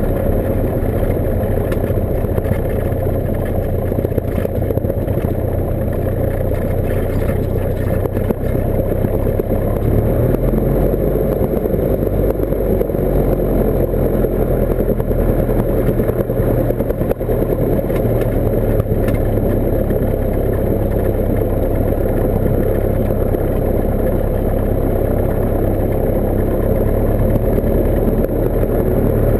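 Cessna 172's piston engine and propeller running at low taxi power, heard inside the cockpit as a steady drone, with a small change in engine speed about ten seconds in.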